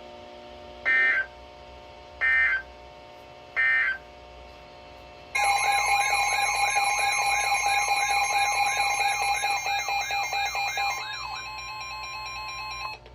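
NOAA Weather Radio Emergency Alert System signal. Three short screeching SAME data bursts come about 1.3 seconds apart, then a long, loud alarm tone starts about five seconds in and holds for about eight seconds, marking the start of a new warning message.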